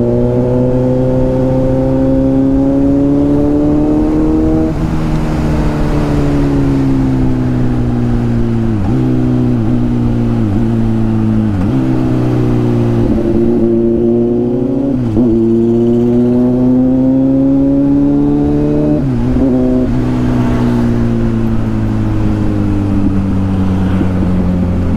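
Kawasaki Z900's inline-four engine running under way, its pitch climbing slowly under throttle and dropping sharply several times at gear changes, with a run of quick dips and recoveries in the middle.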